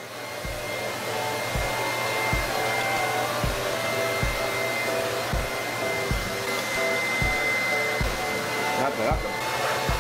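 Wall-mounted pet dryer blowing air through its hose onto a wet dog's coat: a steady rushing blow with a thin whine. It comes up to speed over the first second or two.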